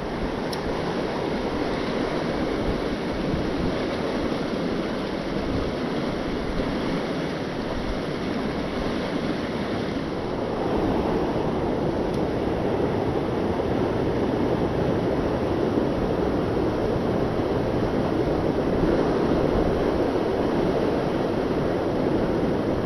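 Steady rush of a river's flowing current, a little louder about ten seconds in.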